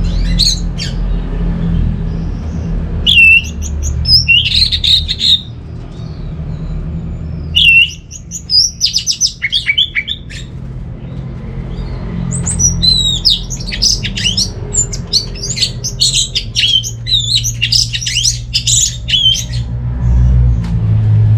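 Orange-headed thrush singing fast, varied phrases of high whistled notes: short bursts at first, then a long near-unbroken run over the second half, over a steady low hum.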